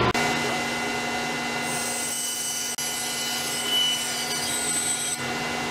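Rikon 10-326 band saw running with its dust-collection vacuum, its blade cutting through a 2x4 for about three and a half seconds in the middle with a hissing rasp over the steady hum of the motors.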